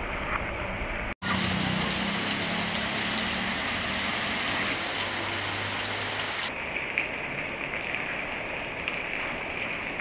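Heavy rain pouring onto a paved yard, a steady hiss. It cuts out for an instant about a second in, then comes back louder and brighter until about six and a half seconds in, when it settles back to its earlier level.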